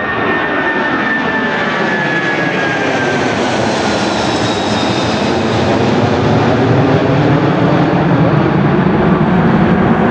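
A Boeing 747-436's four Rolls-Royce RB211 turbofans at take-off climb power as the jet passes overhead and moves away. The jet noise is loud and steady, with a high whine sliding down in pitch over the first few seconds and a deep rumble growing louder in the second half.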